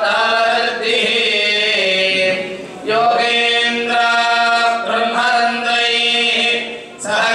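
Voices chanting Sanskrit mantras together in long, sustained phrases on a steady pitch, with short breaks between phrases.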